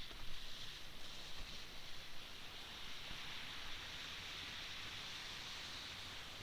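A steady, even hiss, with a few faint knocks in the first two seconds.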